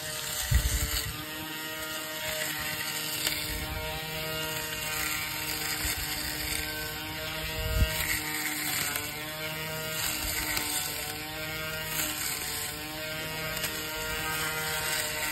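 WADFOW WGTP511 20V cordless grass trimmer's electric motor running, a steady whine whose pitch dips slightly now and then. There are two low thumps, about half a second in and near eight seconds in.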